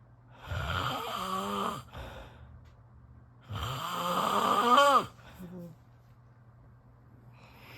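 A person snoring: two long snores about three seconds apart. The second is louder, rises in pitch near its end and cuts off suddenly.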